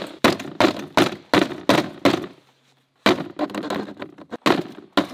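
A rapid series of sharp knocks, about three a second, as a wooden stake is pounded down into the top of a plastic folding table, with a pause of about a second partway through.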